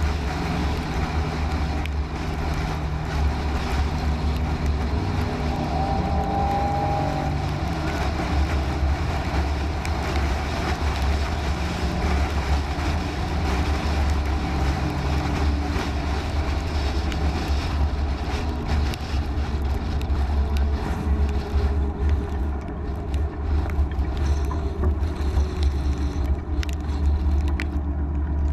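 Steady low rumble of a vehicle driving, engine and road noise, with a few faint steady tones above it.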